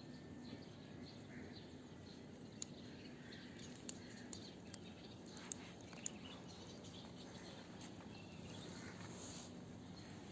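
Faint outdoor ambience with small birds chirping and a few sharp light ticks over a steady low background hum.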